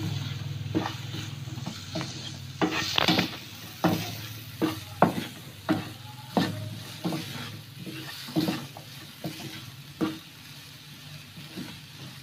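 Wooden spatula scraping and knocking against a nonstick frying pan as peas, carrots and green chillies are stir-fried with ground spices, the food sizzling in oil underneath. The strokes come irregularly, roughly one or two a second.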